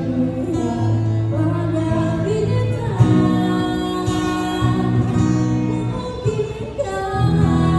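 Live acoustic performance: a woman singing into a microphone with long held notes, accompanied by an acoustic guitar.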